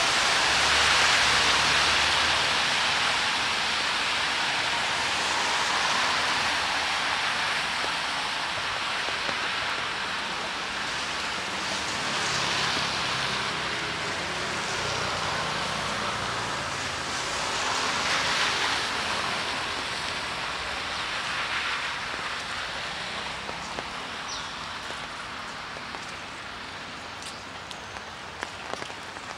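Steady rain falling, a continuous hiss that swells and eases a couple of times and grows gradually softer. Near the end a few single drops tap sharply close by.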